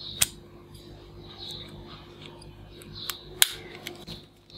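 Plastic toy cap pistol being handled, its mechanism clicking: two sharp clicks, about a quarter second in and again about three and a half seconds in, with lighter ticks and rattles between.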